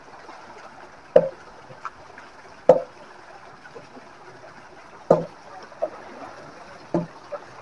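Water splashing: about five sharp, irregularly spaced slaps on the water over a steady background wash of noise.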